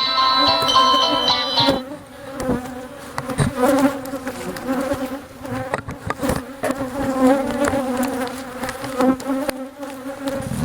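A cloud of disturbed honeybees buzzing, a steady hum that wavers in pitch, with a few faint clicks of handling. Background music plays over the first two seconds, then drops away.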